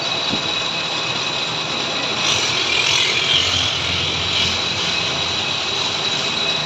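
Lathe running: a steady machine noise with a thin high whine, and a brighter hiss for about a second, a couple of seconds in.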